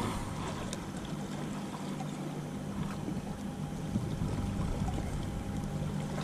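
Steady low engine drone from a distant motor, running evenly throughout, over a light background hiss.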